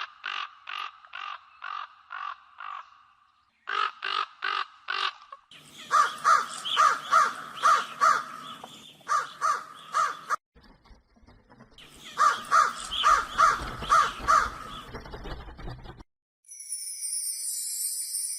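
Crows cawing: bouts of rapid, evenly repeated harsh caws with short pauses between them. Near the end comes a brief high hissing sound.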